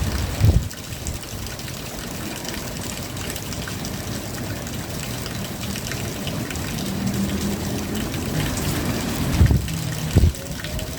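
Steady rain with water trickling and running. A few short low thumps stand out, near the start and twice near the end.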